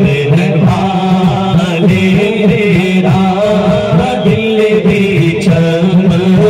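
A man singing a naat, an Islamic devotional song, into a microphone, with a group of men backing him on their own microphones; unaccompanied voices, the melody rising and falling over a steady low vocal line.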